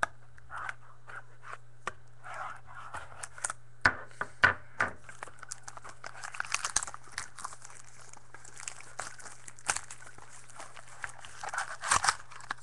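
A foil trading-card pack wrapper being torn open and crinkled by hand: irregular crackling, with a few sharp, louder snaps about four seconds in and another flurry near the end.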